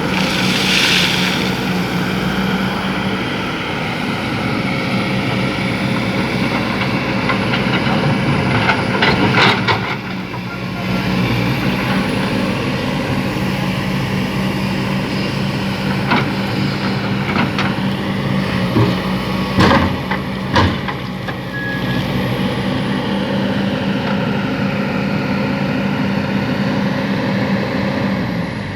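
Heavy diesel engine of an excavator running steadily at a constant pitch, with a few sharp knocks and clanks around the middle, and the engine sound dropping away at the very end.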